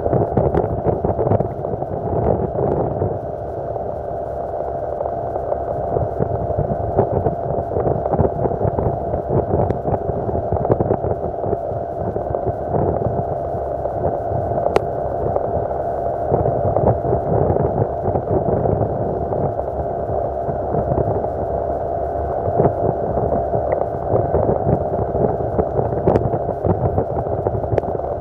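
Yamaha 40 hp two-stroke outboard motor running at a steady cruising speed, its pitch holding constant. Short splashes from the hull cutting through the water come through all along.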